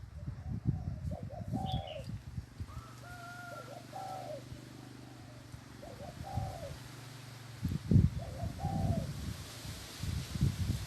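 Spotted dove cooing in short phrases, about four in the span, over irregular low rumbling thumps. The loudest thump comes about eight seconds in.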